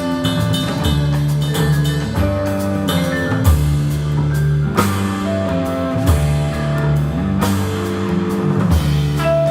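Live jazz quintet of drum kit, double bass, vibraphone, electric guitar and trombone playing: held melody notes over a moving bass line, with sharp drum hits now and then.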